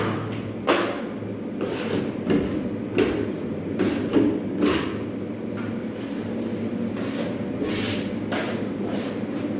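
Short scraping strokes of a hand tool, such as a drywall knife, drawn across a plasterboard wall, coming irregularly one or two a second with a lull midway, over a steady low hum.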